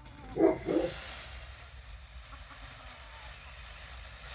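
Two short, loud calls from a fowl, one right after the other about half a second in, followed by a steady hiss.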